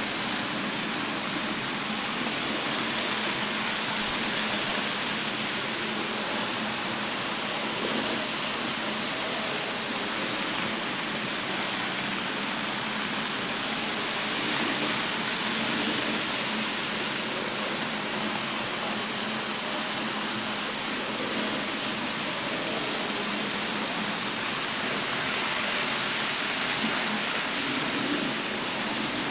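Minitrix N-gauge model trains running on the track, a steady noise throughout. It swells a little about halfway through and again near the end as a train passes close.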